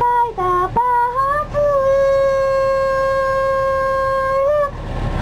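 A woman singing a folk song into a handheld microphone. A few short notes lead up to one long, steady high note held for about three seconds, which ends with a brief turn.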